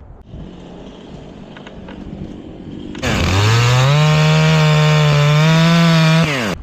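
Two-stroke chainsaw throttled up hard about halfway through, its pitch climbing quickly and then holding at full revs for about three seconds before it is released and drops sharply.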